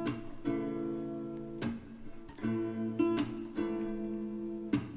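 Background song in an instrumental stretch between vocal lines: guitar chords strummed every half second to a second.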